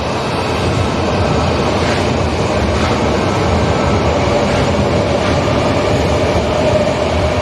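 Electric train passing through a station at speed: a loud, steady rumble of wheels on rail with a steady whine that grows stronger in the second half.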